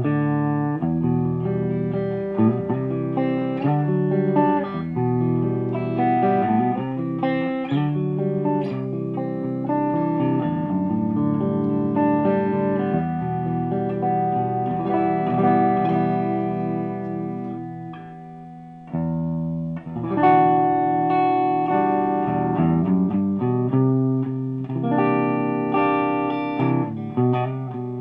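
Electric guitar played clean through a 100-watt all-tube amplifier running two KT88 power tubes and 12AX7 preamp tubes: picked chords and single notes left ringing. About two-thirds of the way in, a chord rings down before the playing starts again.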